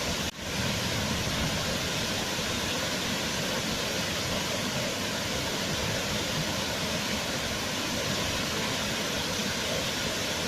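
Waterfall rushing, a steady even roar of falling water. It drops out for a split second just after the start, then comes straight back.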